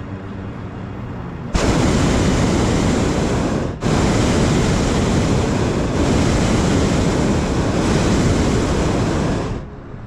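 Hot air balloon's propane burner firing in two blasts: a loud, steady rushing noise starts suddenly about a second and a half in, breaks off for an instant near four seconds, then runs on and cuts off sharply shortly before the end.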